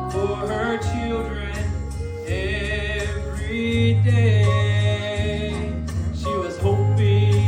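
A man singing a country-style gospel song with vibrato over instrumental accompaniment, with sustained bass notes that grow louder about halfway through.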